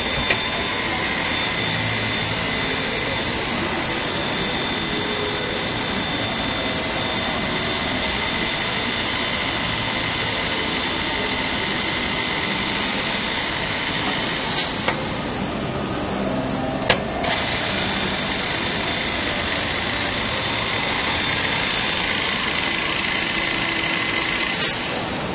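CNC router processing centre running: a steady, loud machine noise with a few fixed high whining tones over a dense hiss, and three short sharp clicks in the second half.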